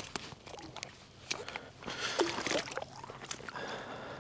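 Faint water sloshing at a rocky shoreline, with scattered small clicks and knocks.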